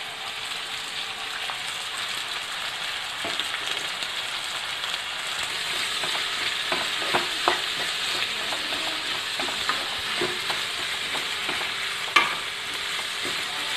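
Sliced onions sizzling in hot oil in a nonstick kadai as they are sautéed, with a spatula scraping and knocking against the pan while stirring. The sizzle grows a little louder after a few seconds, and there is one sharper knock near the end.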